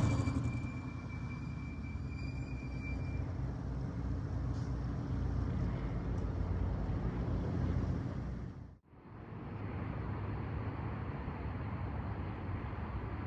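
Paxton-supercharged Mustang's exhaust fading away after a drive-by, leaving a steady low rumble. The sound cuts out briefly a little under nine seconds in, then a similar low rumble comes back.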